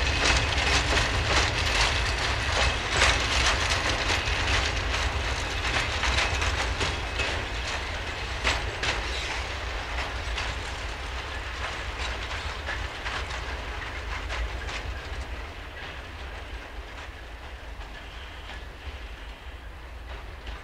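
Train of loaded cement hopper wagons rolling past, their wheels clattering rhythmically on the track, the clatter fading steadily as the train moves away.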